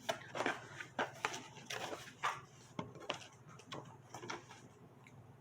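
Irregular rustling and light taps of paper inserts and packaging being handled, a dozen or so short sounds that die away about four and a half seconds in.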